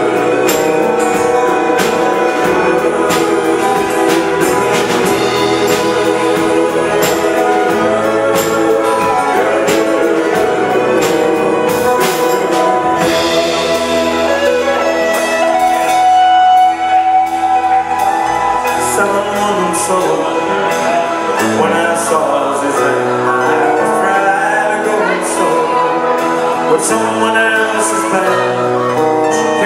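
Live pop band playing a song: electric bass, electric and acoustic guitars, a drum kit with cymbals and keyboards, with men singing.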